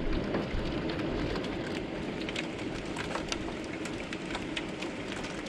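Rain falling hard, with many single drops ticking on the window glass, over a steady rush of rain. A low thunder rumble dies away in the first half-second.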